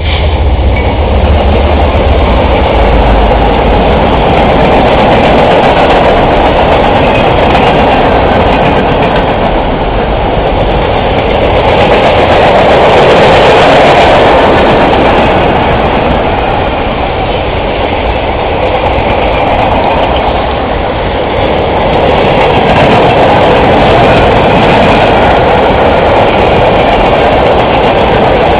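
Diesel-hauled freight train passing close by. The lead locomotive's engine is heavy and low for the first few seconds, then the steady, loud rush of steel wheels on rail continues as the freight cars roll past.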